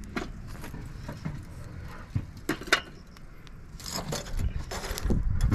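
Metallic clinks and clatter of lump charcoal being moved around in the metal charcoal bowl of a small portable smoker, with sharp clinks near the middle and rustling clatter over a low rumble toward the end.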